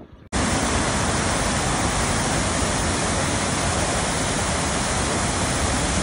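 Kirkjufellsfoss waterfall: a steady, even rush of falling water that starts abruptly just after the beginning.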